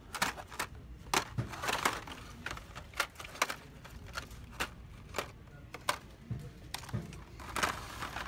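Hot Wheels blister-card packages clacking together as a hand flips through them on the peg hooks: a quick, irregular run of sharp plastic clicks and rattles.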